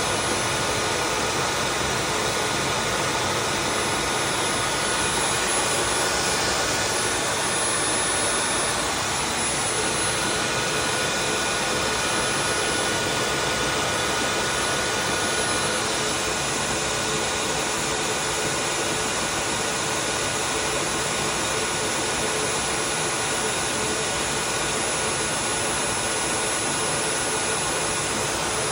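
Tineco Floor ONE S5 wet-dry vacuum running its self-cleaning cycle in its dock: its suction motor runs steadily with a constant whine.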